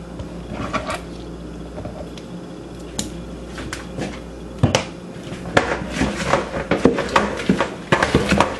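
Kitchen clatter: sliced tomatoes being cleared off a wooden cutting board into a bowl, with scattered knocks and taps of knife and board, thickening into a quick run of clicks and clunks in the last few seconds. A low steady hum runs underneath.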